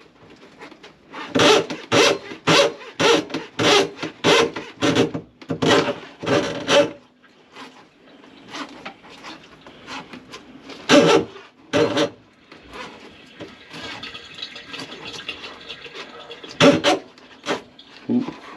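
Rhythmic rasping, rubbing strokes, about two a second for several seconds, from a tool working through a grease-clogged kitchen sink drain, then a few single strokes with a faint wash of water in between.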